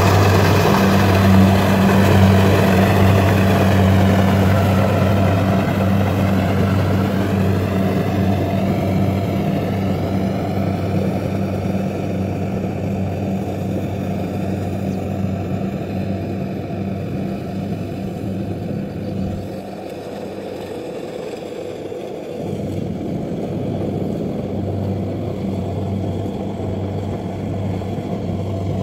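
Kubota combine harvester running steadily as it cuts rice, its engine hum growing fainter as the machine drives away, with a brief dip about two-thirds through.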